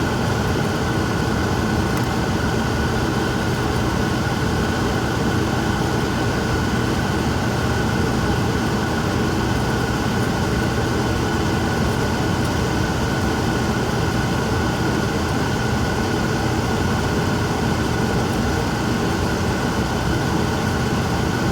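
Forced-air furnace running close by: a steady, unbroken blower drone with a low hum underneath.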